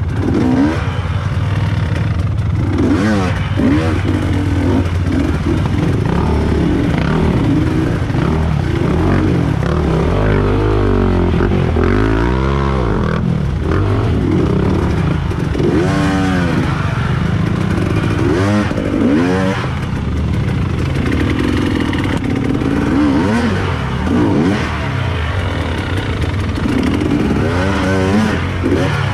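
Off-road trail motorcycle engine running hard, revving up and down over and over, its pitch rising and falling every few seconds over a steady lower engine note.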